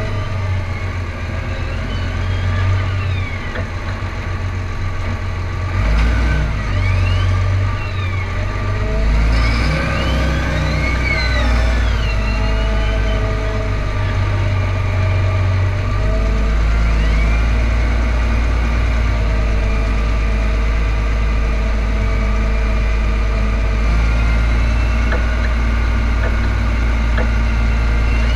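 Large John Deere tractor's diesel engine running as the tractor drives, heard from a camera mounted outside by the hood. A whine rises and falls in pitch several times in the first half, then the drone holds steady from about halfway on.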